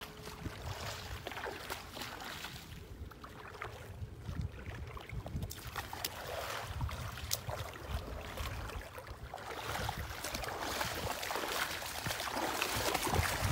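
Wind buffeting the microphone, with scattered footsteps and scuffs on the wet floor of a concrete canal.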